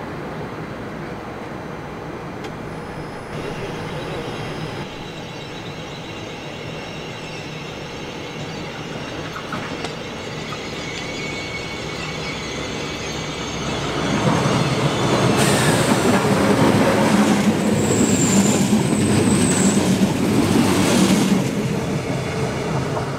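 Passenger multiple-unit train running into the station and past on the platform track. Its rumble grows loud about fourteen seconds in, with a high, thin wheel squeal while it passes, and dies back near the end.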